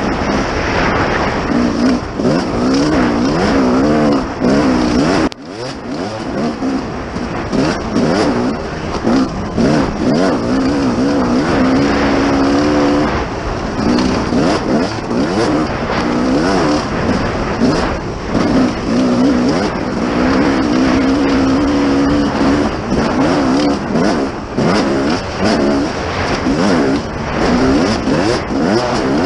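Dirt bike engine revving up and down as it is ridden hard along a trail, its pitch rising and falling with the throttle and gear changes. The sound drops off sharply for a moment about five seconds in.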